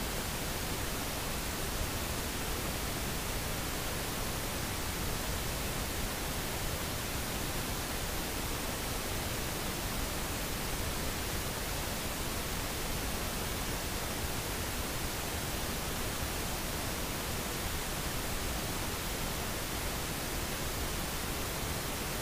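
Steady, even hiss of background noise with no other sound: the noise floor of the voice recording.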